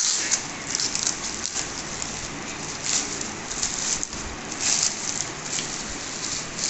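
Packaging being torn open and handled: a dense, irregular crinkling and rustling with many small crackles as a delivered phone parcel is unwrapped.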